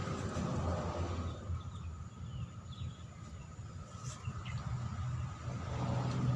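Outdoor ambience: a steady high insect drone and a few short, faint bird chirps over a low rumble.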